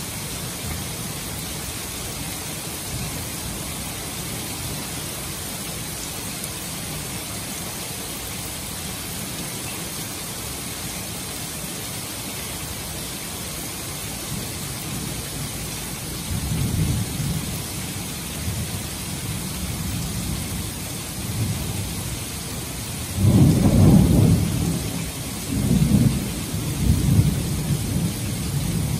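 Heavy rain hissing steadily on a roof and street, with rolling thunder coming in past the halfway point, loudest a little after three quarters of the way in.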